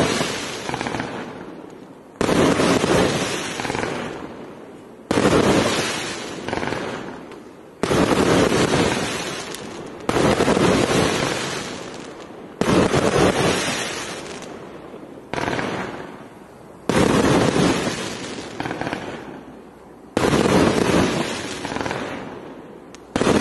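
Multi-shot firework cake firing one shot about every two and a half seconds. Each shot is a sudden sharp report followed by a crackling tail that fades over a second or two.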